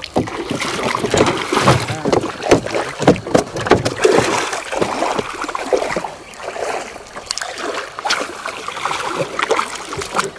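Irregular water splashing and sloshing at a small boat while a hooked fish is played on rod and reel, busiest in the first half.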